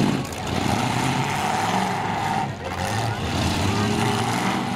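Demolition-derby pickup truck engines running and revving, shifting in pitch, with a steady higher whine over the first couple of seconds.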